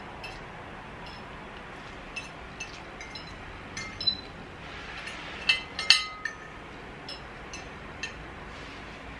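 Metal forks and spoons clinking and scraping against ceramic plates while eating: scattered light clinks, with a louder cluster about four seconds in and again around six seconds in.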